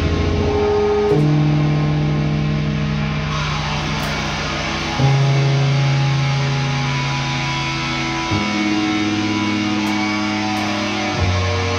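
Improvised instrumental music on electric bass and guitar: long sustained notes and chords that shift to new pitches every three to four seconds, the tone turning brighter about three seconds in.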